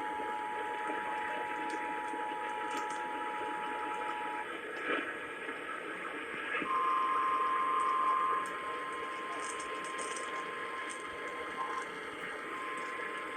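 Emergency Alert System attention signal, a steady two-tone chord, stops about four seconds in. After a click and a short stretch of radio hiss, the single-pitch weather radio warning alarm tone starts, loudest for its first couple of seconds, with a short break near the end. Radio static hisses underneath throughout.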